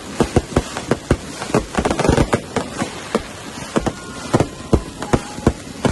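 Fireworks going off: an irregular series of sharp bangs and cracks, about three to four a second.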